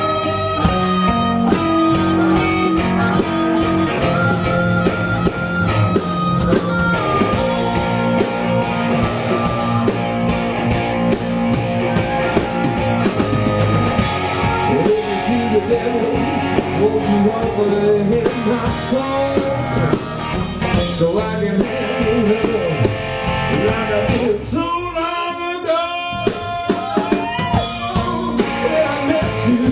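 Live blues band playing: harmonica wailing long, bending notes over electric guitar, bass guitar and drums. About 24 seconds in, the bass and drums drop out for a moment while the high parts carry on, then the full band comes back.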